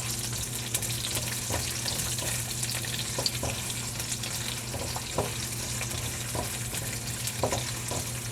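Sliced onions sizzling steadily in hot oil in a pan as they sauté, with a few light clicks of a spatula stirring them.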